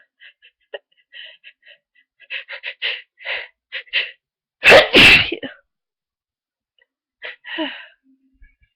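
A person with a heavy cold builds up to a sneeze with a run of short catching breaths, then sneezes loudly about halfway in, followed by a breathy intake a couple of seconds later. It is part of a sneezing fit.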